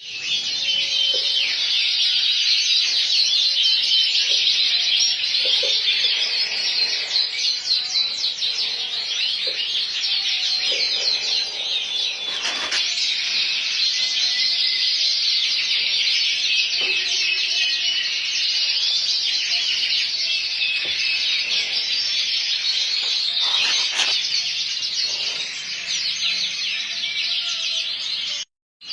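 Male frill canary singing continuously: a long, loud song of rapid trills and warbles, broken only by a brief dropout just before the end.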